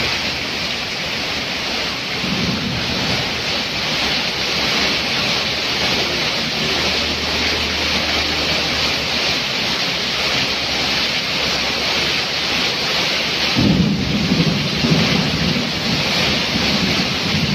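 Heavy rain hissing steadily on the road and streaming off a roof edge. About three-quarters of the way through, a low rumble of thunder sets in suddenly and carries on, louder than the rain.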